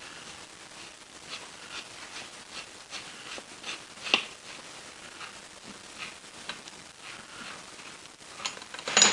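Faint metal clicks and light scrapes of a wrench working on the bolts of a cast-iron lathe tailstock, with one sharper clink about four seconds in.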